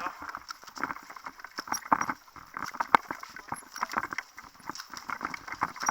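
Irregular knocks and clicks, two or three a second, with one sharper crack about three seconds in.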